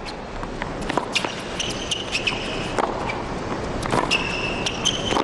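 Tennis rally on a hard court: sharp pops of racquets striking the ball and the ball bouncing, about one a second, with high squeaks of tennis shoes on the court surface twice, around the middle and near the end.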